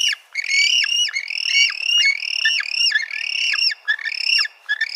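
Penguins in a colony calling: a fast run of overlapping high calls, each note arching up and then dropping in pitch, with a brief lull about four seconds in.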